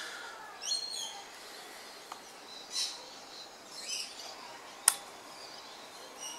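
Birds chirping in short calls, with a sharp click about five seconds in as the Panasonic GH3's articulated screen is swung closed against the camera body, and a fainter click a couple of seconds in.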